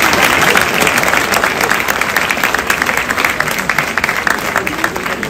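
Audience applauding: a crowd of people clapping, thinning out and dying down near the end.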